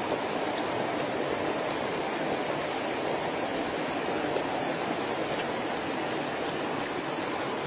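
Stream water running, a steady, even rush with no pauses.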